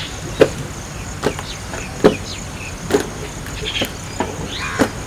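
Outdoor ambience of a steady insect drone with a few short chirps, over which a sharp knock repeats at an even pace, about once a second, six times in all.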